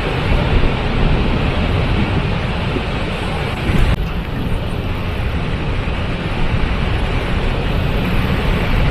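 Waterfall: a steady, loud rush of falling water, heaviest in its low rumble, with a slight change in tone about four seconds in.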